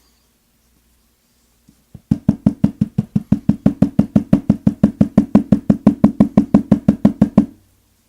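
Rapid, even knocking, about eight knocks a second for some five seconds, starting about two seconds in and stopping abruptly. It is the Alfa oval lock cylinder being tapped to shake a stuck last driver pin out of its chamber.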